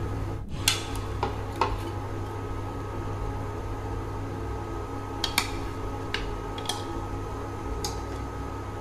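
Metal ladle clinking lightly against a stainless-steel pot several times as whole fish are lowered into boiling curry, over a steady low hum.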